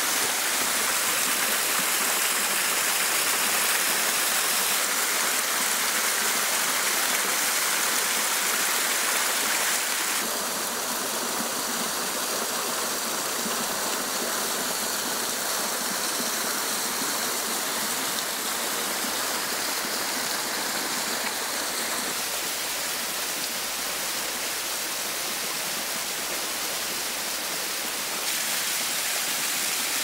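Cataract Falls, a waterfall, rushing in a steady hiss of falling water. Its level and tone shift abruptly a few times, about 5, 10, 22 and 28 seconds in.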